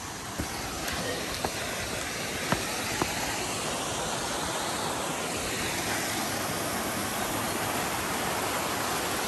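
Mountain stream rushing and splashing over rocks, a steady even rush that grows slightly louder, with a few sharp knocks in the first three seconds.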